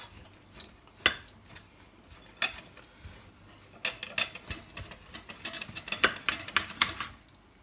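Kitchen knife and fork cutting through a seared pork joint on a ceramic plate: irregular sharp clinks and scrapes of metal against the plate, coming thickest a little past the middle.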